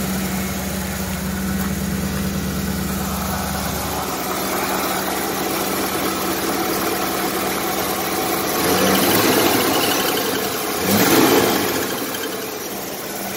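1993 Ford F-150's V8 idling with the hood up, its exhaust header leaking on one side. It is revved up in the second half, the strongest rev rising in pitch about eleven seconds in.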